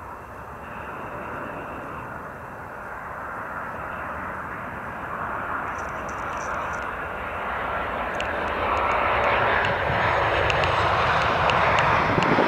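Boeing 737-700 airliner on final approach to land, the jet noise of its CFM56 engines growing steadily louder as it comes in low.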